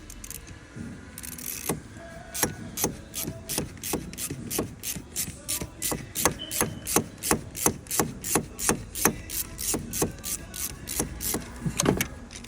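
Quarter-inch ratchet clicking in a steady run, about three clicks a second, as the alternator's mounting stud is backed out.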